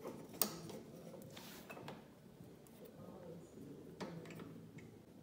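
Light clicks and handling sounds from hands fitting the choke cable and linkage on a Honda push mower's carburettor. A sharp click comes about half a second in, a short hiss at around a second and a half, and another click about four seconds in.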